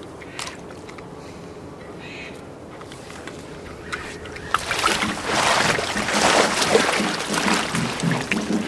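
Water splashing and sloshing in an inflatable paddling pool as a body drops into it, starting about halfway through after a few quiet seconds with small clicks.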